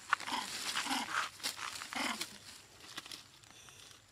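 Baby macaque crying, about three short calls in the first two and a half seconds, then quieter.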